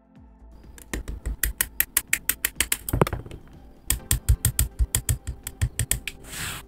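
Hobby side nippers snipping and trimming gate nubs off small plastic model kit parts: a fast run of sharp clicks, about seven or eight a second, in two runs with a short pause near the middle, then a brief hiss near the end.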